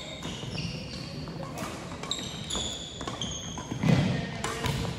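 Badminton play on a gym's hardwood floor: sneakers squeaking again and again in short high chirps, rackets clicking against shuttlecocks, and footfalls, with a heavier thud about four seconds in.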